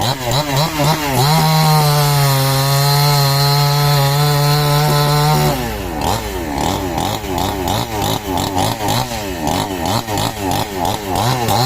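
Chainsaw cutting a tree. The engine revs up, holds a steady high pitch for about four seconds, then its pitch dips and rises again and again as the chain works through the wood.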